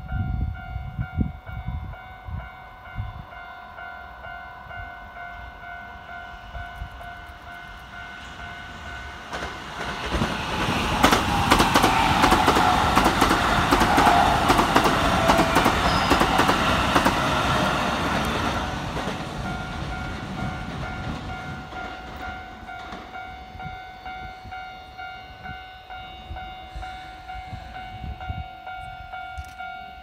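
Level-crossing warning bell ringing steadily while a Keikyu electric train passes close by, its wheels clattering over the rail joints. The pass is loudest for about eight seconds in the middle, with a falling whine as the train goes by.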